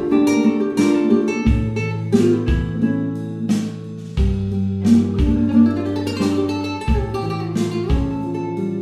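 Background music: flamenco-style acoustic guitar, plucked and strummed, over percussion with low thumps.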